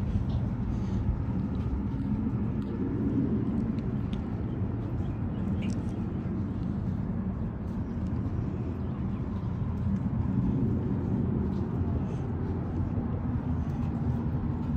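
Wind buffeting the microphone outdoors: a steady, fluttering low rumble with no pitched tone in it.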